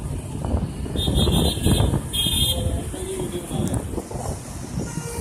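Road traffic heard from a moving vehicle: a steady low rumble of engine and road noise with wind on the microphone. Two short, high-pitched horn toots sound about one and two seconds in.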